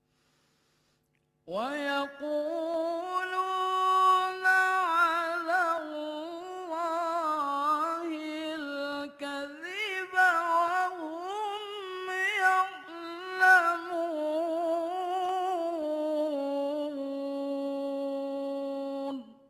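A man reciting the Quran in the melodic mujawwad style: one long sung phrase of about 18 seconds that starts with an upward sweep a second and a half in, winds through wavering ornaments, and ends on a lower held note before breaking off.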